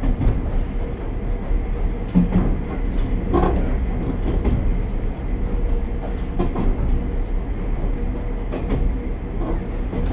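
Running noise of a KiHa 37 diesel railcar with its DMF14HZ diesel engine, heard from inside the front cab: a steady low drone with a faint constant hum. Irregular clicks and knocks from the wheels and track come through it, the strongest about two and three and a half seconds in.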